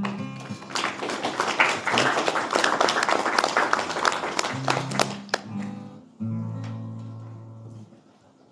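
Audience applauding for about five seconds over a few acoustic guitar notes, then a strummed acoustic guitar chord rings and fades away.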